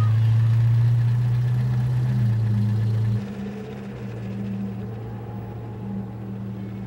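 Convertible car's engine running with a steady low hum as the car pulls away, dropping noticeably in level about three seconds in and carrying on fainter.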